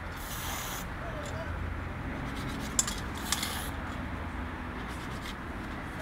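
Aerosol spray-paint can hissing in two short bursts of about half a second each, one near the start and one about three seconds in, with a sharp click shortly before the second.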